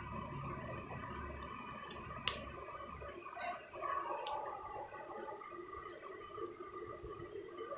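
Cat crunching dry kibble from a steel bowl: scattered small clicks as kibble and teeth knock the metal, one sharper click about two seconds in.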